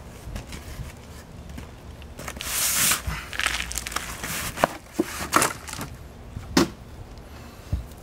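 Potting soil tipped out of a plastic planter onto a plastic tarp: a rustling rush of soil and tarp about two and a half seconds in, then several sharp knocks and crinkles as the pot and soil are handled.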